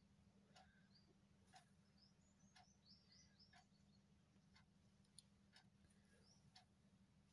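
Near silence: faint ticking about once a second, like a clock. A few faint high chirps come in the first half, over a low steady hum.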